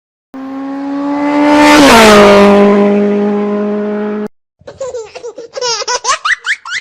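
A motor vehicle passing by: a steady engine tone swells, drops in pitch as it goes past about two seconds in, and fades, then cuts off abruptly. Laughter in quick high-pitched bursts follows near the end.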